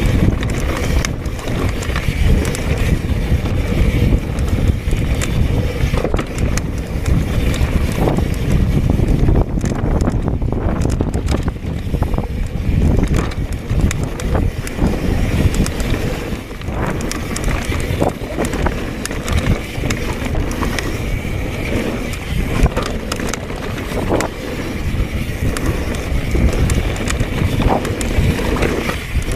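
Mountain bike ridden fast on a dirt trail: heavy wind noise on the microphone over tyre rumble, with frequent rattles and knocks from the bike.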